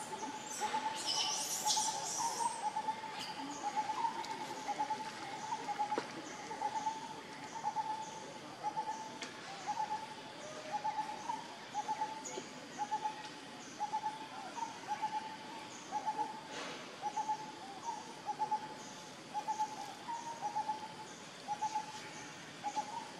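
A bird repeating one short hooting note over and over at an even pace, about three notes every two seconds. A brief burst of high chirping from another bird comes about a second in.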